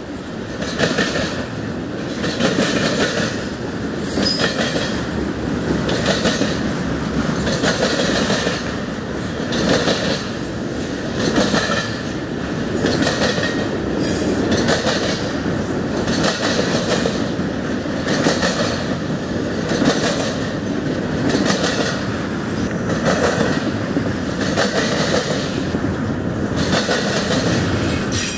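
Intermodal freight train cars rolling past at close range, the wheels clattering over the rail joints in a regular beat about every second and a half.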